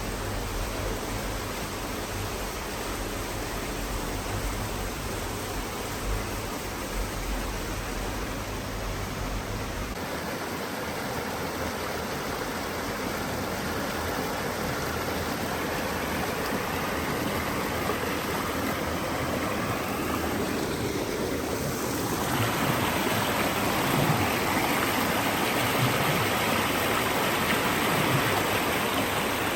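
Steady rush of running water from a garden water feature, growing louder and brighter about three quarters of the way through.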